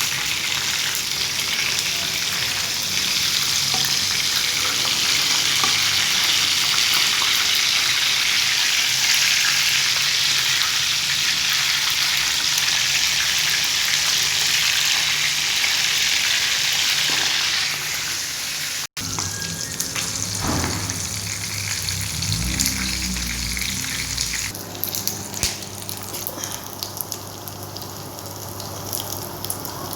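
Chicken feet frying in hot oil: a loud, steady sizzle that eases off about seventeen seconds in. After a sudden cut, a quieter crackling sizzle goes on over a low hum, with a few brief knocks.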